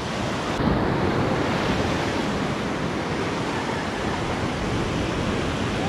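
Surf breaking and washing up on a sandy beach: a steady rushing noise.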